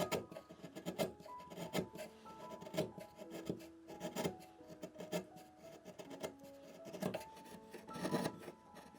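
Hand tool scraping and rasping on wood in a run of short, irregular strokes, over background music with a simple melody.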